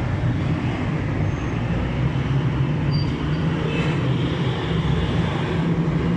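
Steady engine rumble with a constant low hum and road-noise haze, from motor traffic or an idling motorcycle engine.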